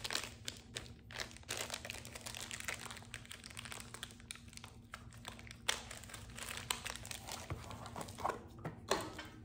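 Thin plastic packaging bag crinkling and rustling in the hands, with irregular crackles and a few sharper plastic clicks as the small plug-adapter parts are handled.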